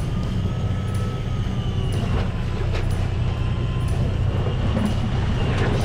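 A fishing boat's diesel engine running steadily, a low, even drone with a faint high whine above it.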